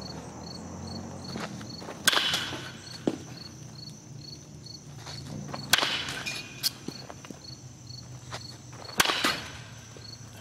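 Baseball bat hitting a ball three times, about three and a half seconds apart, each a sharp hit with a brief ring. Insects chirp steadily behind in an even, rapid pulse.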